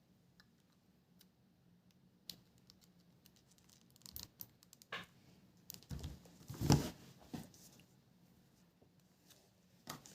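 Handling noises from unboxing a tablet: scattered clicks, rustles and scrapes of packaging and the device being moved, with a dull knock about two-thirds of the way in.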